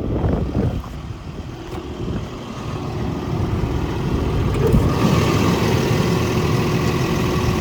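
Volvo EC220E excavator's 5.7-litre diesel engine idling, a steady rumble that grows louder and gains a rushing hiss about five seconds in.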